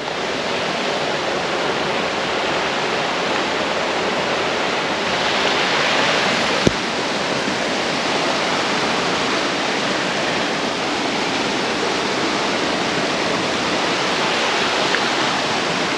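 Rocky stream rushing past, a steady wash of water. A single brief click sounds about seven seconds in.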